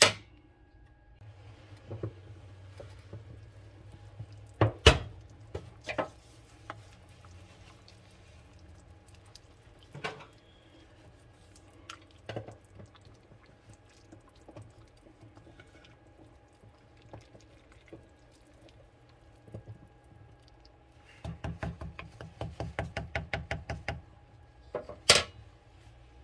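Wooden spoon stirring greens in an enamelled cast-iron pot, knocking against the pot now and then with single sharp knocks. Near the end comes a quick run of small clicks, about eight a second. A faint steady hum lies underneath.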